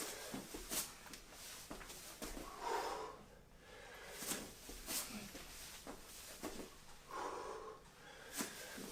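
A person breathing hard through walking burpees: two long, noisy exhales about four seconds apart, with a few short soft taps of hands and feet on the floor.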